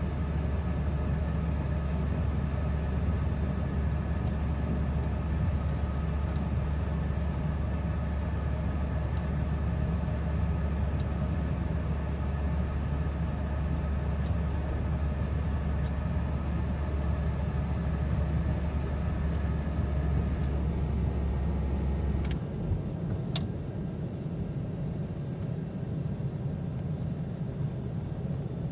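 Steady engine and propeller drone of a Beechcraft King Air twin turboprop, heard from inside the cabin while it taxis. About two-thirds of the way through, the deep hum drops away abruptly, two sharp clicks follow, and a lighter rumble carries on.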